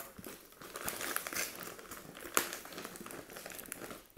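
Brown kraft packing paper crinkling and rustling as hands pull and crumple it while unwrapping a parcel, with a sharper crackle about two and a half seconds in.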